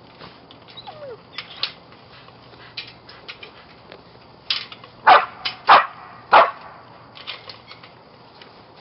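A dog barking three times in quick succession about five seconds in, among lighter scattered clicks and knocks.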